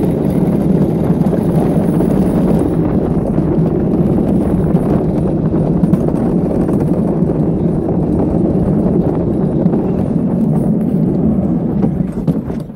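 Luge cart's wheels rolling fast on an asphalt track: a steady, dense rolling noise with fine rattling, easing off near the end.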